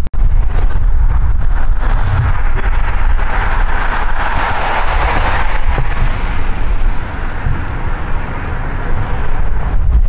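Strong wind buffeting the microphone with a heavy, uneven low rumble. A rushing sound swells to a peak about halfway through and fades away.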